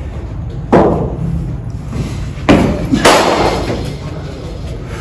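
Three sharp thuds, the first about a second in and two more close together around two and a half to three seconds in: a tennis ball being bowled and hit with a cricket bat, each knock echoing briefly in the indoor net hall.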